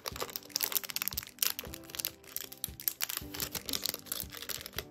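Crinkling and clicking of plastic packaging being handled, over quiet background music.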